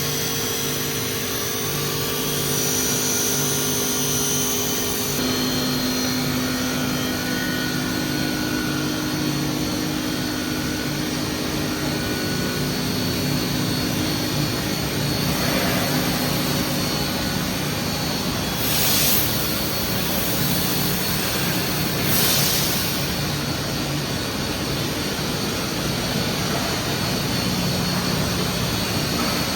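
Stainless steel tube mill running steadily, a constant machine hum with several steady tones, joined by a few short hissing bursts in the second half.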